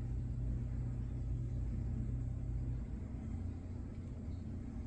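Steady low hum with faint background noise, a little quieter about three seconds in.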